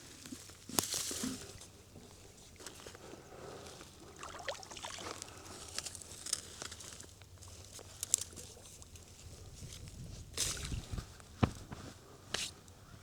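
Faint splashing and sloshing of shallow pond water, with scattered knocks and rustles, as a bucket is worked down into the water to sink.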